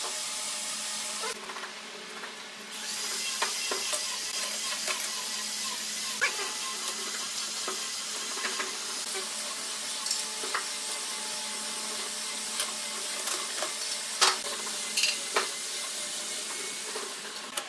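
Thin wooden strips being set down and shifted on a wooden workbench: scattered light knocks and clacks over a steady background hum, which dips for a moment about a second and a half in.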